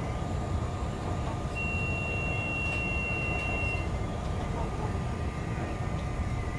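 CTA Brown Line 'L' train running on elevated track, a steady low rumble of wheels on rail. About a second and a half in, a single high steady squeal sounds for about two seconds as the train takes a curve, typical of wheel flanges squealing on curved rail.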